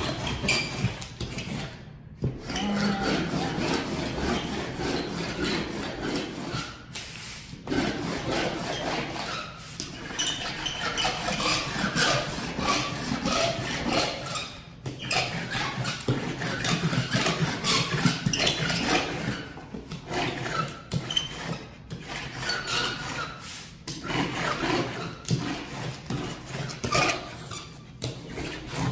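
Rubber brayer rolled hard back and forth over sanded pastel paper on foam core board, pressing the paper down onto the spray adhesive: a continuous rough rolling rumble, broken by short pauses between strokes every few seconds.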